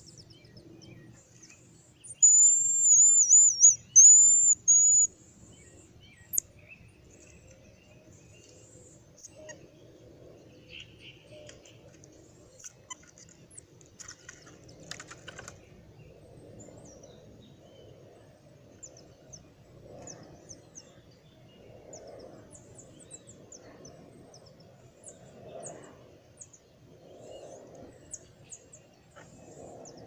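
Marmoset giving a loud, high-pitched wavering trill call in two parts, about two to five seconds in. Faint scattered high chirps and ticks follow.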